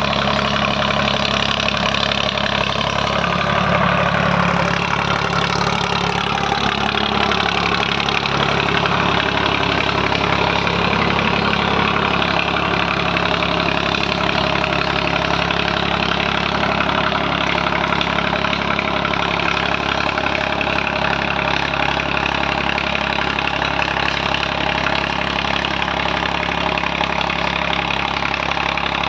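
Swaraj 744 tractor's diesel engine running through an Eicher silencer; its speed drops a few seconds in, then it runs steadily.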